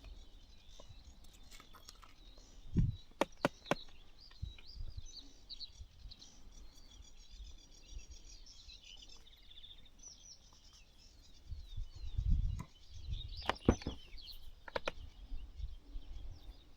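Small birds chirping and singing, with a few knocks and low thumps at about three seconds in and again near the end.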